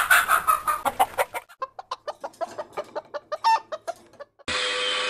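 Chicken squawking and clucking excitedly: a loud squawk, then a fast run of short clucks that thins out and fades over about four seconds. Near the end a steady whirring noise starts abruptly.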